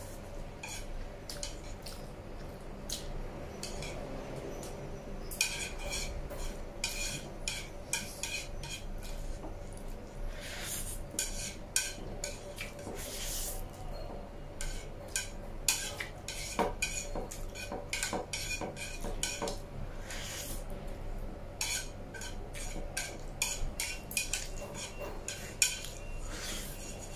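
Wooden chopsticks clicking and scraping against a ceramic plate, gathering up the last noodles, with a few short slurps of noodles in between.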